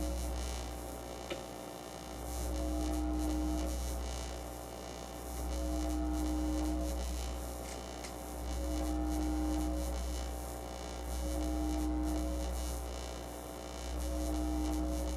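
Low electrical hum from an audio mixer, swelling and fading in a slow, regular pulse about every three seconds, with a steadier mid-pitched tone rising and falling along with it.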